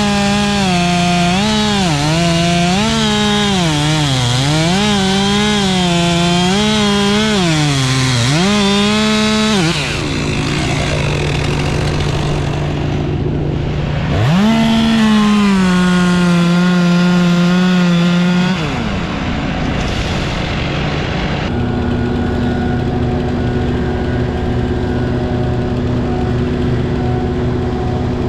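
Two-stroke chainsaw running at full throttle and cutting through a tree, its pitch dipping and recovering again and again as the chain bites into the wood. It cuts again for a few seconds about halfway through and then drops off. In the last few seconds an engine idles steadily.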